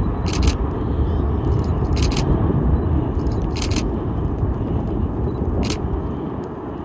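Wind buffeting the microphone: a loud, uneven low rumble that eases slightly near the end, with four short bursts of hiss.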